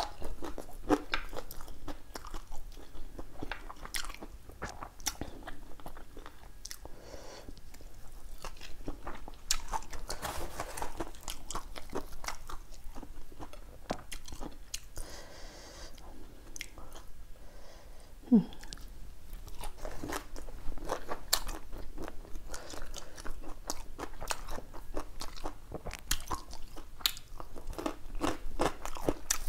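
A person eating by hand close to a clip-on microphone: steady chewing and biting of mouthfuls of Isan mok kai (chicken with dill) and fresh vegetables, with many crisp crunches. A brief hum comes about two-thirds of the way through.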